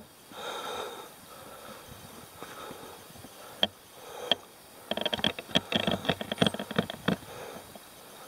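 Rustling handling noise from a handheld camera being carried on foot. Two sharp clicks come a little before the middle, then a quick run of crackles and clicks for about two seconds.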